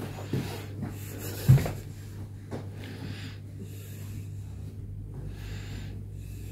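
Rustling of a blanket being smoothed over a bed by hand, a soft swish every second or so, over a steady low hum. A single dull thump comes about one and a half seconds in.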